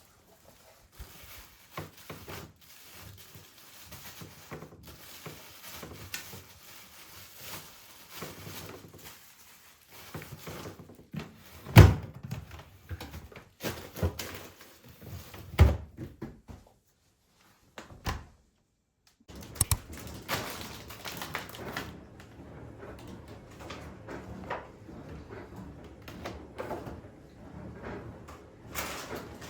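Household handling sounds: things being put down and cupboard doors and drawers opened and shut, with scattered knocks and two loud thunks, about 12 and 16 seconds in, and another sharp knock near 20 seconds.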